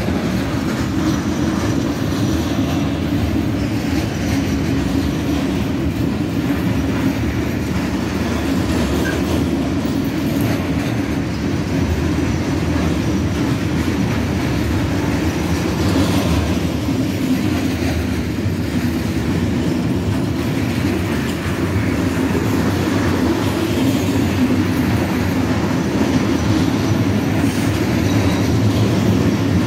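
Sgns container flat wagons of a freight train rolling past, loaded with tank containers: a steady, loud rumble and clatter of wheels on the rails that runs on without a break.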